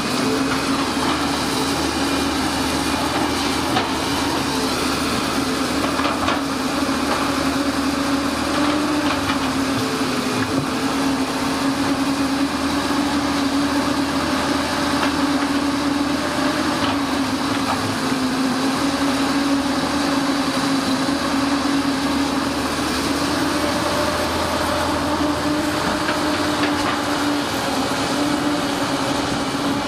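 Diesel engines of tracked excavators running steadily under digging work, a continuous drone whose pitch drifts slightly up and down.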